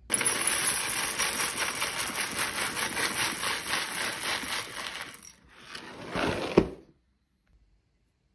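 Dry cereal pieces pouring from a cardboard box into a glass bowl, a dense rattling clatter of many small pieces for about five seconds. After a brief pause comes a second, shorter pour that ends in a sharp knock.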